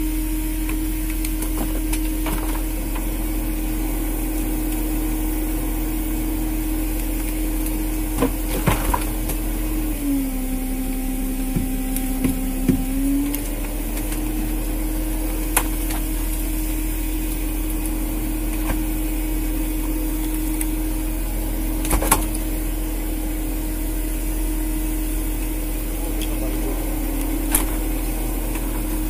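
Steady hum of a fishing boat's engine and hydraulic line-hauling machinery. Its pitch drops for a few seconds about a third of the way in, then comes back up, as the load changes. A few sharp knocks of gear and line handling sound over it.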